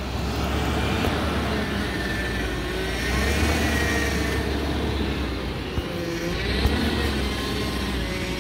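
Range Rover L322's V8 engine running at low speed as the SUV crawls slowly over rocks, its pitch rising and falling gently with the throttle. A couple of small knocks near the end.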